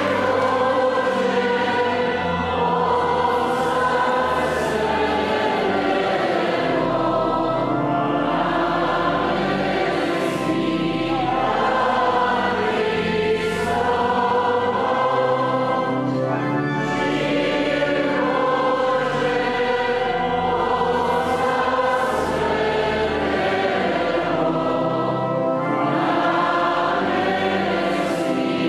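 A choir singing a slow hymn in sustained chords over a steady low accompaniment.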